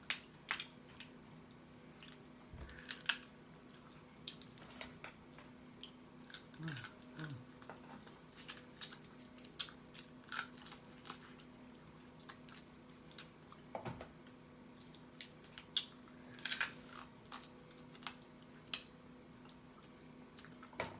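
Chewing and lip smacking on saucy seafood boil: irregular wet mouth clicks and smacks, a cluster of them about two thirds of the way in.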